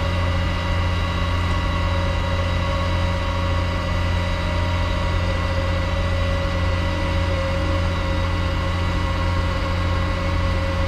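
HIMARS launcher truck's diesel engine running steadily at idle, a deep hum with a steady whine over it, while the launcher's hydraulic reload boom moves out.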